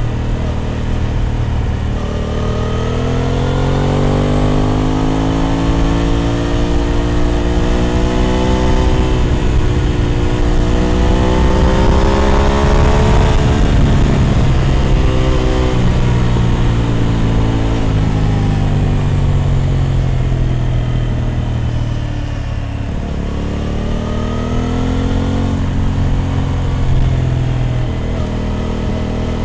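Aprilia RS 660 Extrema's parallel-twin engine through an SC Project exhaust, pulling up through the revs for about ten seconds and then easing off with the pitch falling. The revs drop briefly past the two-thirds mark and climb again near the end, over a rush of wind noise.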